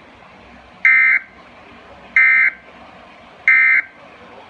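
Emergency Alert System end-of-message data bursts: three short, identical screeching digital tone bursts about a second and a quarter apart, over faint radio hiss. They mark the end of the tornado warning message.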